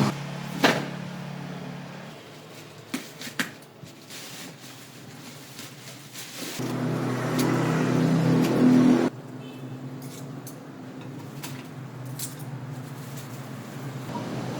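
An engine running, dropping back after about two seconds, then swelling louder and cutting off suddenly about nine seconds in, with a few sharp clicks.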